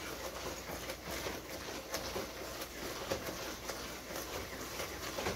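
Wooden spoon beating thick coconut fudge mixture in a metal pot: repeated, irregular scrapes and soft knocks, several a second. The mixture is being beaten so it will set.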